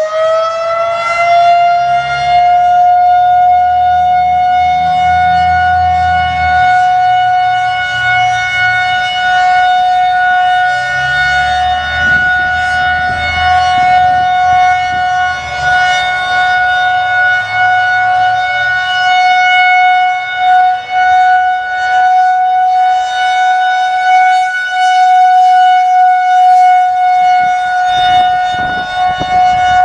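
Federal Signal 2001-130 electromechanical outdoor warning siren finishing its wind-up in the first two seconds, then holding a loud, steady single tone for a scheduled test.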